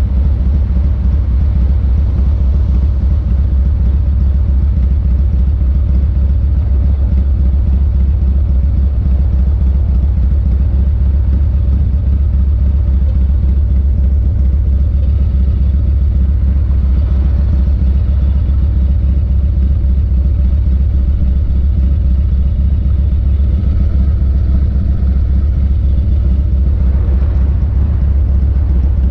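1985 Harley-Davidson FXRT's 1340 Evolution V-twin idling steadily with the bike stopped, a deep even rumble with no revving.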